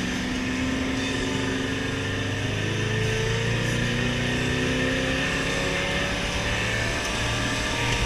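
Truck engine heard from inside the cab while driving, its pitch rising slowly and steadily as the truck gathers speed, over a steady rumble of tyre and road noise.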